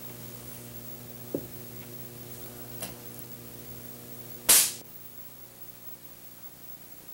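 Steady mains hum with two light knocks in the first three seconds, then one loud, sharp snap about four and a half seconds in: the high-voltage spark source firing its test pulse inside the acoustic scale model.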